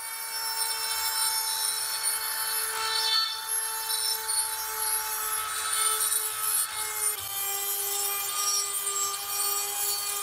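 Rotary tool spinning a pink abrasive grinding stone inside the eye of a meat grinder's crank handle, grinding out rust: a steady high motor whine over scratchy grinding, the pitch dipping slightly about seven seconds in.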